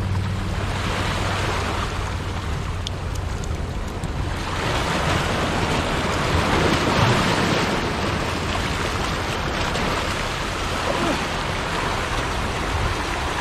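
Ocean waves washing and foaming over rocks, with wind buffeting the microphone; the surf swells louder about five seconds in.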